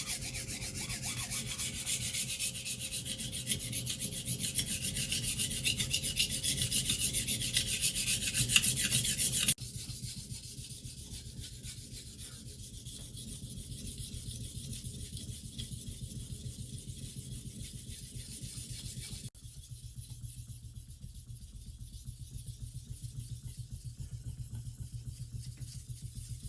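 Nakiri kitchen knife blade being stroked by hand across a wet whetstone, a rapid, even grinding rasp of steel on stone. It changes abruptly twice, becoming quieter and duller each time.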